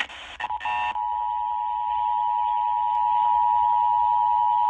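FM radio being tuned: about a second of broken static, then the Emergency Alert System's two-tone attention signal comes in and holds steady. This is the alert tone that opens a station's tornado drill and monthly test.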